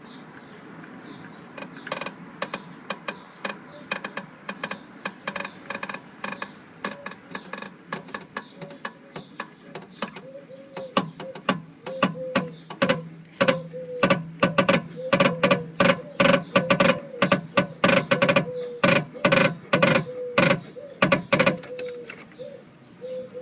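Creaking and knocking from the rear of an Audi TT Mk1. Irregular sharp knocks come thicker and louder from about halfway, over a steady low tone.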